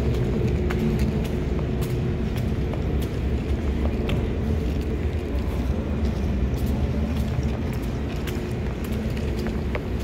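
Steady low rumble and faint hum of an underground metro station's background, with light, irregular ticks of footsteps on the tiled platform.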